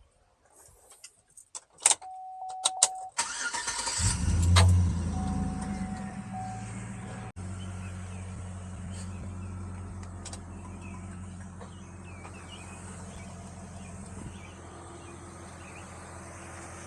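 Chevy Tahoe engine cranked and started about four seconds in, then settling into a steady idle. A few clicks and a short steady chime tone come just before it.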